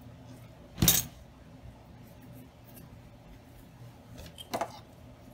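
A sharp clack of a hard object being set down on the craft work surface about a second in, followed by a softer knock and rustle near the end as ribbon is handled.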